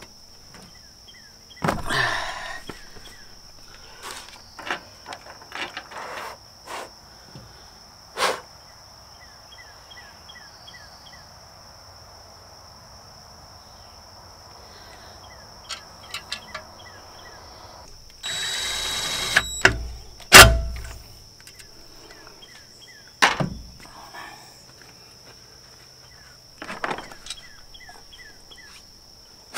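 Scattered knocks and clatter of parts and tools being handled on a truck bed, with a rough noise lasting about a second and then a loud thump about twenty seconds in, the loudest sound. A steady high insect buzz runs underneath.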